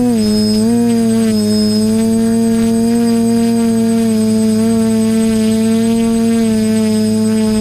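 TBS Discovery quadcopter's motors and propellers humming at a steady pitch, dipping and recovering briefly about a second in as the throttle changes.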